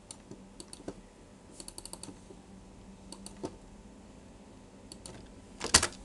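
Computer keyboard and mouse clicks at a desk: scattered single clicks, a quick run of several about one and a half seconds in, and a louder double clack near the end.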